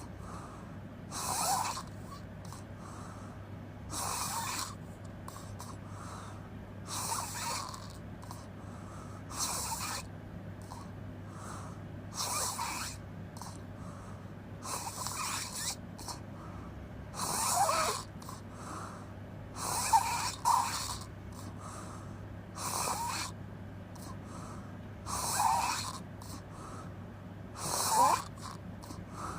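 A person snoring with the mouth open, one rough snore every two to three seconds.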